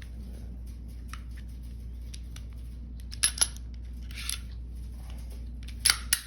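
Handgun being reassembled, its slide being worked back onto the frame: two sharp metal clicks about three seconds in, a short sliding scrape, then two more clicks near the end.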